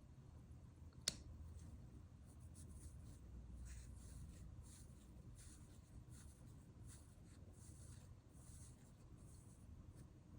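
Eoniq Signature skeleton mechanical watch being wound by its crown: faint, irregular scratchy ratcheting from the winding mechanism, a few strokes a second, with one sharper click about a second in.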